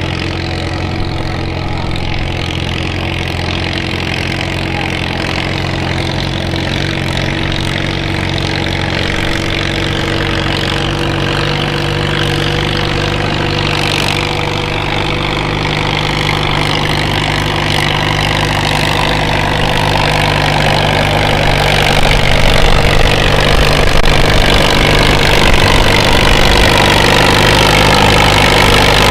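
Farmall M tractor's four-cylinder engine working hard under load while pulling a weight-transfer sled at walking pace. It is a steady drone that grows louder over the course of the pull.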